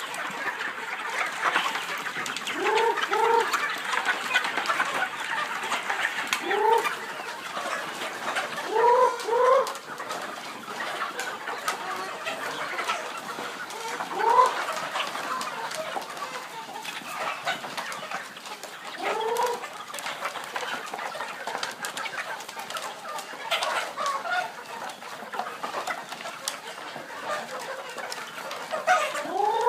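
A flock of chickens clucking together without a break, with short upward-rising calls standing out every few seconds, several of them in quick pairs.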